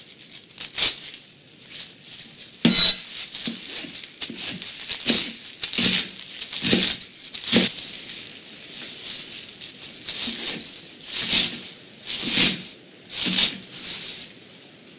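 Curly kale being torn off its stems and chopped with a knife on a plastic cutting board: crisp crinkling, tearing crunches in irregular strokes, about one a second.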